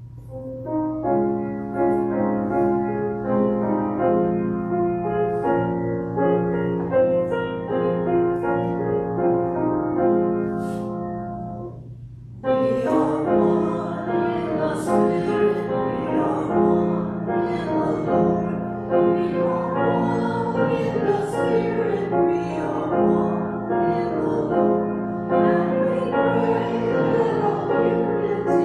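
Piano plays an introduction of separate, ringing notes. About twelve seconds in, a small mixed church choir begins singing with the piano.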